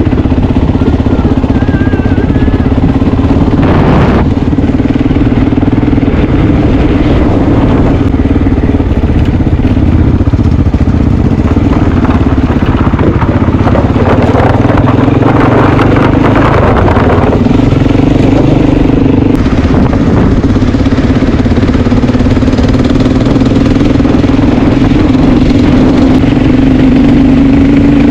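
Big single-cylinder Honda XR dual-sport motorcycle engine running steadily while riding on a dirt road, with a fairly even engine note and small changes in revs.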